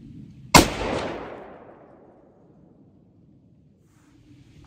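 A single shot from a 7mm Remington Magnum rifle with a muzzle brake: one sharp crack about half a second in, followed by an echo trailing off over about a second and a half.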